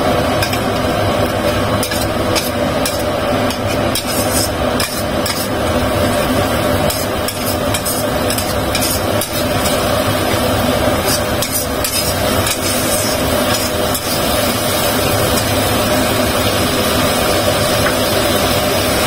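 Metal spatula scraping and knocking against a wok as a thick chili paste is stirred, with irregular clicks of metal on metal. A steady hiss of the paste frying runs underneath.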